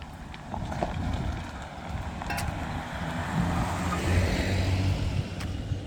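A motor vehicle driving past on the road, its engine and tyre noise building to a peak about four seconds in and then easing off.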